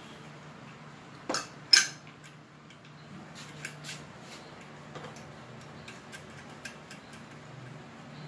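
Metal clinks and clicks of a snail horn and its mounting bracket being handled and fitted to a motorcycle's front frame: two sharp knocks about a second and a half in, then scattered light ticks, over a faint steady low hum.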